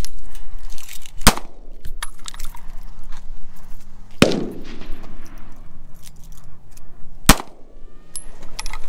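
Three handgun shots, about three seconds apart, each trailing off in a short echo.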